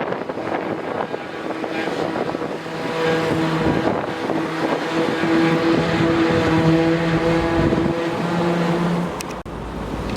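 An engine running at a steady pitch: a droning hum with overtones that fades in and out over a noisy mechanical background, with a couple of sharp clicks near the end.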